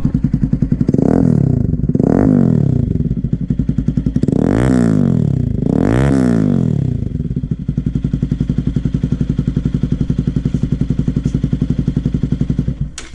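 Bajaj Pulsar NS200's single-cylinder engine idling through an open SC muffler with no silencer insert, blipped in four quick revs in the first half. It then settles back to idle until it stops near the end.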